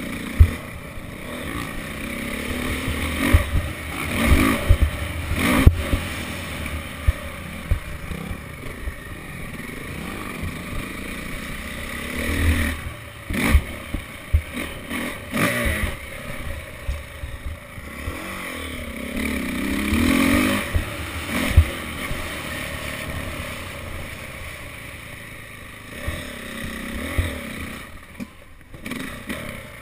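Dirt bike engine heard from onboard, revving up and down again and again as it is ridden round a motocross track, with rushing noise and frequent knocks from bumps and landings.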